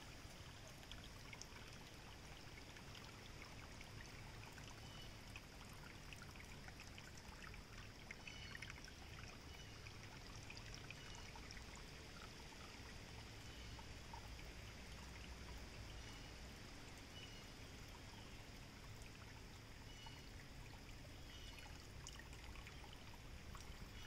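Faint, steady sound of a creek flowing: water running and trickling.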